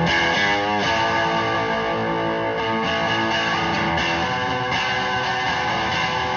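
1965 Gibson SG Junior electric guitar played through a 1975 Marshall JMP combo amp, held notes and chords ringing out with a pitch bend about a second in, heard through a phone's microphone.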